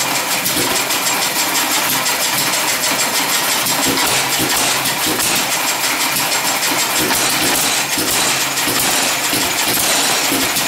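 Full-size and half-scale Eclipse stationary gas engines running, a steady rapid clatter of firing and valve clicks.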